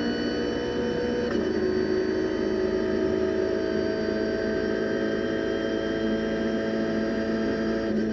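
Renault Clio Cup race car's four-cylinder engine at full throttle, heard from inside the cabin. It shifts up from fifth to sixth gear about a second in, with a sudden drop in pitch, then pulls with a slowly rising pitch as the car gains speed.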